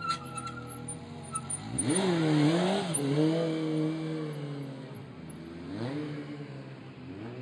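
Motorcycle engine revving hard about two seconds in as the rider lifts into a wheelie, then held at a steady pitch, with a second rise in revs near the end.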